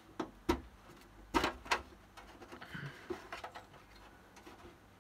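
Several light clicks and knocks from handling a PC tower case as its side panel is worked loose after the screws are out; the sharpest come in the first couple of seconds, with fainter taps around three seconds in.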